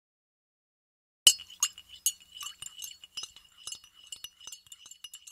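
A spoon stirring in a cup, clinking against its sides about two or three times a second and leaving the cup ringing. It starts with a sharp clink about a second in.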